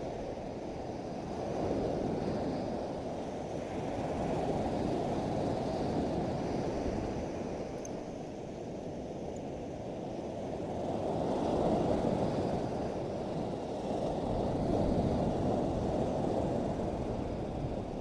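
Sea surf breaking and washing up a sandy beach: a steady low rush that swells and eases every few seconds.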